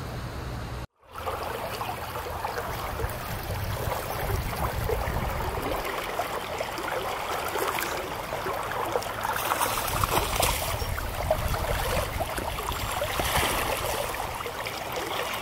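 Creek water running steadily over riffles, with splashing near the end as a hooked brown trout thrashes in a landing net.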